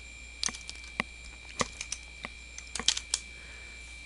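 Computer keyboard being typed on: irregular keystroke clicks at an uneven pace, with a quick run of several keys about three seconds in. A faint steady high-pitched tone runs underneath.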